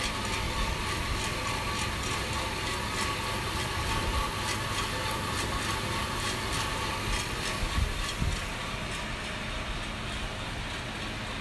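Drum coffee roaster running: a steady whir from the turning drum and blower, with a regular light clicking over it. Two louder knocks come about eight seconds in, and the clicking fades a little after them.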